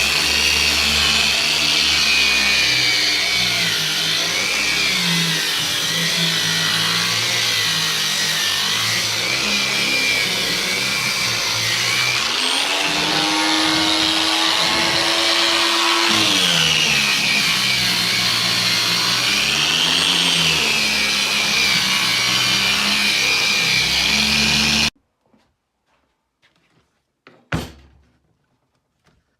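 Homemade electric sanding/grinding machine running, its motor pitch rising and falling. It cuts off suddenly near the end, followed by a single knock.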